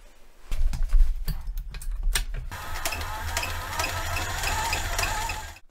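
Cobra Class 4 industrial sewing machine stitching the rolled top edge of a leather tote. A few clicks and knocks come first, then the motor hums steadily with an even stitching tick about three times a second, cutting off suddenly near the end.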